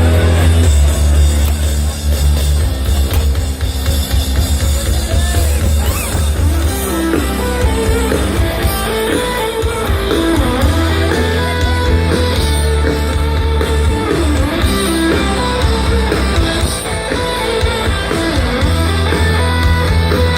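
Live rock band playing an instrumental passage: electric guitar lines over a steady bass and drums, with no vocals.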